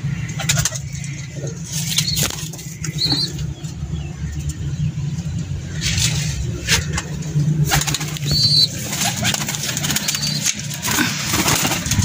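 Pigeons flapping their wings in several brief, sharp flurries and cooing, over a steady low hum, with a few faint high chirps.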